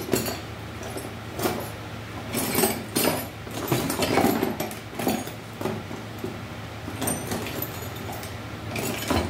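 Metal tools clinking and knocking against each other as someone rummages through a container of tools, in irregular sharp clatters.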